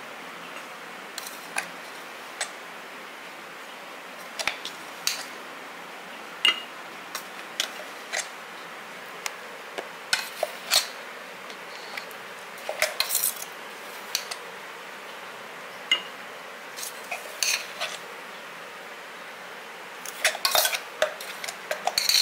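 Steel spoon clinking and scraping against a glass jar and a steel mixer jar as ground garam masala powder is spooned into the jar. The clinks are scattered, several coming in quick clusters, with a faint steady hiss underneath.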